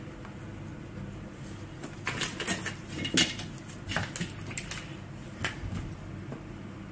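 Light metallic clicks and clinks from an electric scooter's red rear disc-brake caliper and brake cable being handled. A cluster of sharp taps runs from about two seconds in until past the five-second mark, the loudest about three seconds in.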